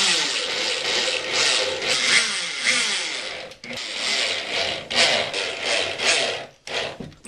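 Power drill-driver driving screws into wood backing strips. The motor speeds up and slows down in one long run, then in several shorter bursts in the second half.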